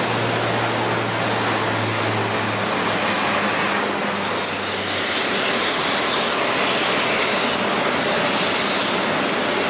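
Airliner engines running with a steady noise, with a low hum that fades out about halfway and a higher whine in the second half.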